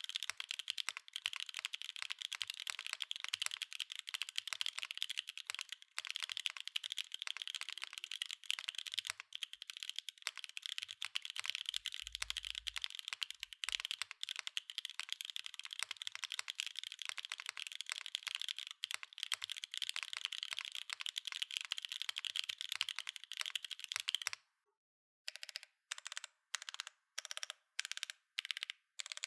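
Mode Encore 2026 mechanical keyboard with Obscura linear switches on an aluminum plate, wave-spring mounted with no foam, being typed on quickly and continuously. About 24 seconds in the typing stops briefly, then single keys are pressed one at a time, about two a second.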